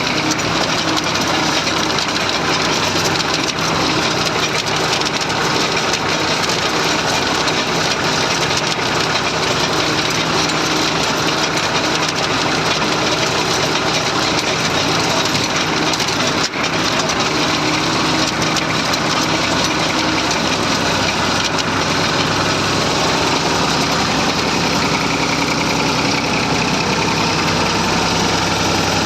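Massey Ferguson 35 tractor engine running steadily, with one momentary drop in level about two-thirds of the way through.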